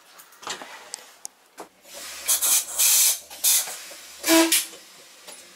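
Several loud bursts of compressed air hissing from a standing railcar's air system, the kind of release heard from the brakes before moving off. A few clicks come before them, and the last burst, about four seconds in, carries a brief tone.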